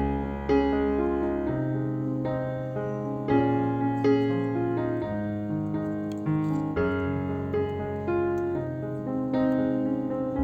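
Background piano music: a gentle melody over held bass notes.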